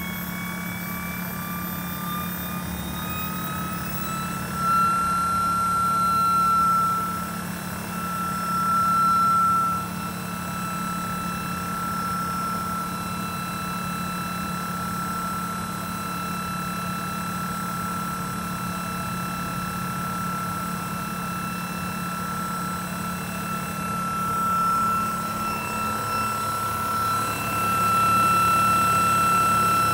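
IHI Dynajet 2.6 micro gas turbine generator spooling up: a high whine rises in pitch over the first few seconds, then holds steady as the turbine settles at running speed, over a steady low hum. The sound swells briefly a few times.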